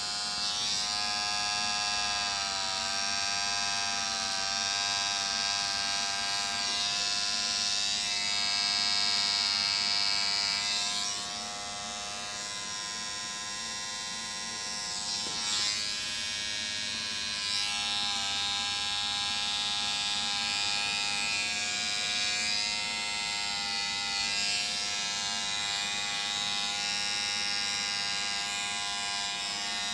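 Electric hair trimmer buzzing steadily, its pitch dipping and wavering now and then as it works along the nape, edging the neckline.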